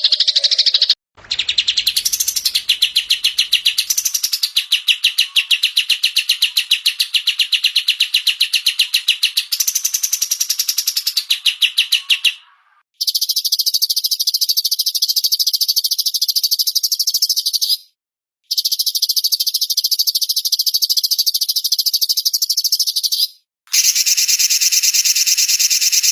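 Small songbirds chattering in very fast, evenly repeated high chirps, from a spliced bird-song training recording. The song comes in several blocks that start and stop abruptly at each splice.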